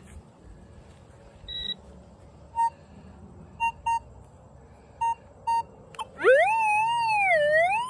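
Minelab Vanquish 540 metal detector giving a handful of short beeps as its coil is swept back over a freshly dug hole. About six seconds in, a loud continuous tone starts; it rises, wavers up and down in pitch and then holds steady, as the detector reads a target in the hole.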